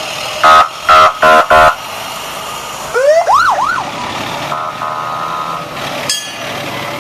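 Fire engines passing: four short, loud horn blasts in quick succession, then a siren whooping up and down three times, followed by a quieter steady siren tone.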